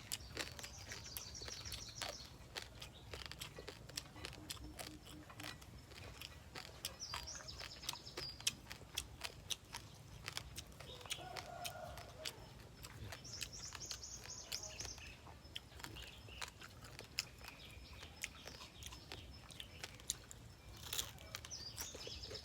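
Crunching and cracking of a deep-fried rock crab's shell being bitten and chewed, a steady run of sharp cracks. A bird chirps briefly in the background a few times.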